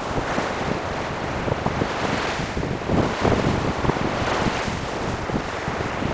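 Surf washing onto a sandy beach in rising and falling swells, with wind buffeting the microphone.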